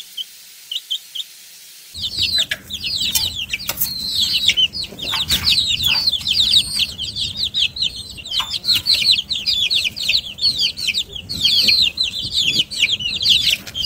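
Baby chicks peeping: a few single high chirps at first, then, about two seconds in, a dense crowd of chicks peeping without pause in high, quickly falling chirps. Knocks and rustling sound underneath.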